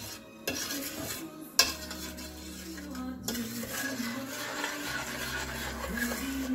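A spoon stirring a thick sugar, evaporated-milk and corn-syrup candy mixture in a stainless steel saucepan, scraping and clinking against the pot, with two sharp knocks about half a second and a second and a half in.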